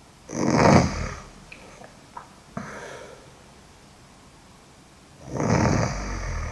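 A sleeping woman snoring loudly: two long snores about five seconds apart, with a softer breath between them.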